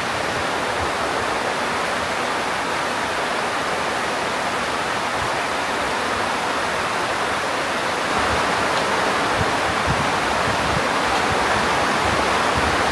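Steady rushing water, a dense even hiss that grows a little louder about eight seconds in.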